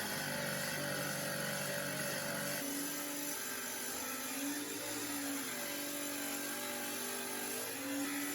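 Electric wet tile saw running, its motor whine steady, with the pitch shifting a few times.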